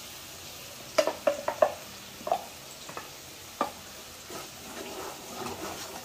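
A wooden spatula scrapes thick ground masala paste out of a steel mixer-grinder jar into a hot kadai, with a handful of short knocks and scrapes against the jar about a second in and a few more over the next few seconds. Under it is a soft steady sizzle as the paste meets the oil.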